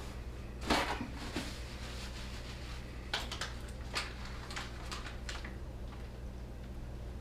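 Kitchen handling noises over a steady low hum: a short scrape or rustle about a second in, then a few light clicks and knocks.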